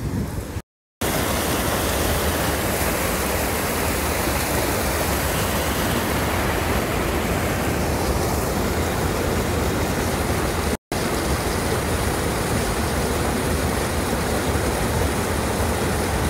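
Steady rush of water pouring through a concrete canal gate and churning into the muddy channel below.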